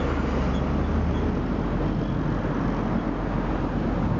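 Steady roar of road traffic from many cars and engines, with a low engine hum standing out for about the first second and a half.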